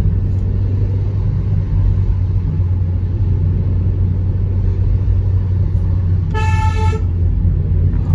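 Steady low rumble of a car's engine and road noise heard from inside the cabin, with one short car-horn toot about six seconds in.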